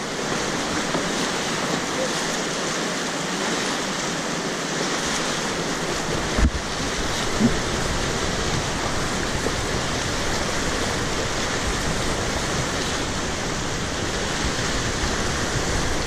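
Steady rush of whitewater around an inflatable raft being paddled through rapids. Two brief thumps a little under halfway through.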